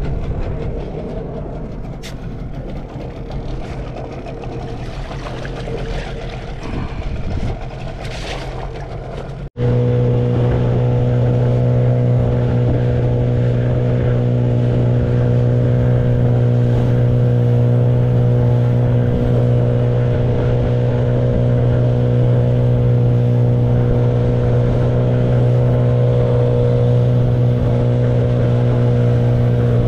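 Hangkai 12 hp outboard motor running steadily at cruising speed as the boat moves over the sea. The steady engine note comes in abruptly about a third of the way in; before that the sound is quieter and rougher.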